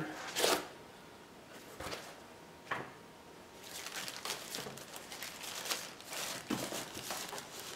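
Handling of packaging in a cardboard box: a sharp knock of cardboard about half a second in, then, from about halfway on, steady rustling and crinkling as white packing wrap is pulled open.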